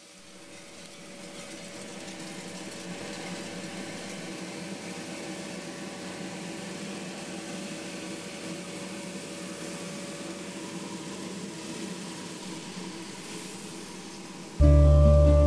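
Coffee roasting machinery running: a steady motor-and-fan hum with a hiss, fading in over the first couple of seconds. Loud guitar music starts suddenly near the end.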